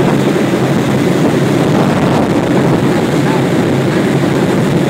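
Boat engine running steadily at cruising speed, with the rush of the churning wake.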